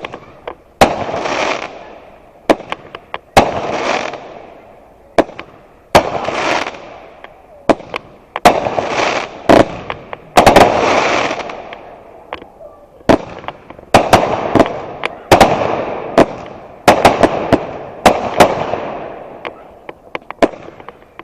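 Fireworks going off in quick succession: a sharp bang about every two seconds, each followed by a noisy tail that dies away over a second or two, with extra single pops in between.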